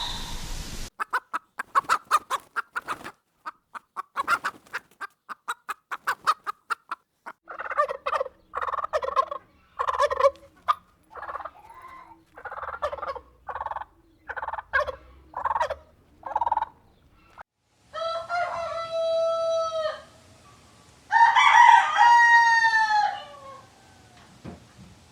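Domestic chickens: a quick run of clucks, then a string of short, evenly spaced clucking calls, then a rooster crowing twice near the end.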